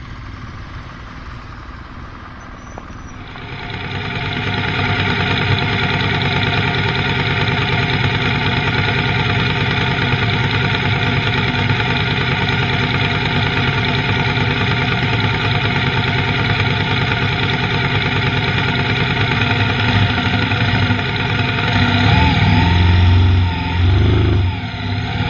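Motorcycle running on the road. The sound is quieter at first, then about three seconds in it grows loud and holds steady, with the pitch shifting near the end.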